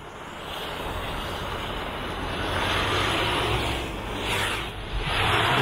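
Pickup truck's engine revving under load as its tyres spin and churn through deep snow, the truck struggling for grip. The engine and the churning grow louder about a second in.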